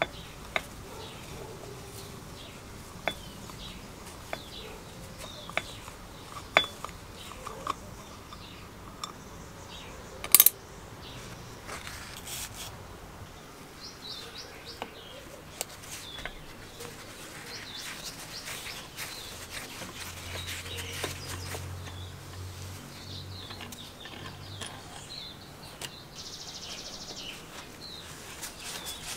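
Metal hand tools clinking and scraping against the motor housing and stator of a vintage Sprayit diaphragm airbrush compressor as it is taken apart. Scattered sharp metallic clicks come first, the loudest about ten seconds in, followed by quieter rubbing and scraping.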